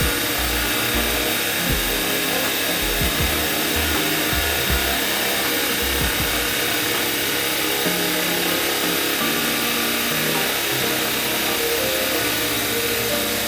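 A power tool running steadily on wood, with background music underneath.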